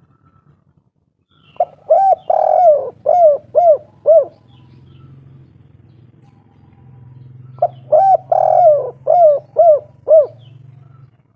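Spotted dove (derkuku/tekukur) cooing in the 'kuk 3' style, twice. Each phrase has a couple of short notes, one longer coo, then three short 'kuk' notes at the end. A faint low hum runs underneath.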